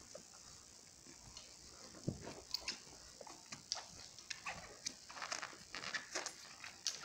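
Puppies play-wrestling, mouthing and scuffling against each other on the bedding: short, irregular little noises that get busier from about two seconds in.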